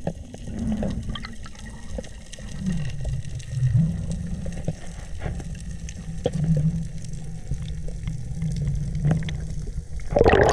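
Underwater sound as picked up by a camera on a spearfishing dive: a low, wavering water rumble with scattered sharp clicks. A sudden louder noise breaks in near the end.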